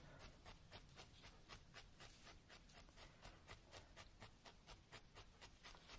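Faint, rapid, even jabbing of a felting needle into wool, about five stabs a second, as a new layer of wool is felted onto the leg to secure it.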